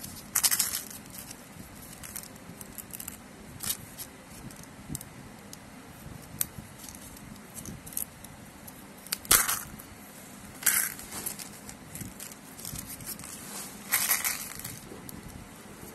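Thin printed wrapper being peeled and torn off a plastic toy surprise egg by hand: crinkling and tearing in several short sharp bursts, with quieter rustling between.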